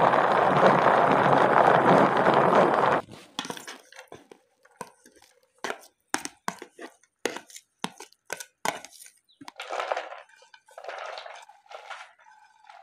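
Hand-operated plastic vegetable chopper whirring as it chops green capsicum for about three seconds. Then a knife taps and scrapes the chopped capsicum onto a plate in a series of sharp clicks, and near the end shredded cabbage rustles as it is pushed from a plate into a bowl.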